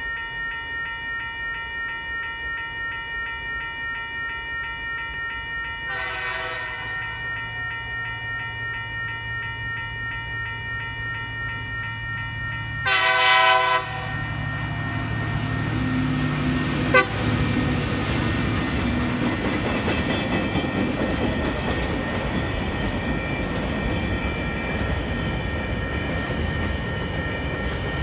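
Level crossing warning bell ringing with a steady pulse while a TasRail TR-class diesel locomotive approaches. Its horn gives a short blast about six seconds in and a longer, louder blast around thirteen seconds. The locomotive's engine then rumbles past and the empty container wagons roll over the crossing with wheel clatter and a sharp clank about seventeen seconds in.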